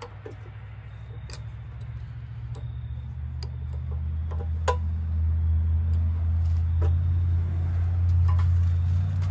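A low, steady motor drone grows gradually louder. Scattered light metal clicks of a wrench on the ATV's rear drum-brake linkage sound over it.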